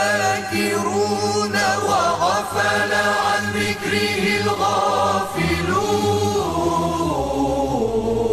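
Male choir singing an Arabic devotional chant over a low held drone, several voice parts moving together, then settling onto a long held closing note near the end.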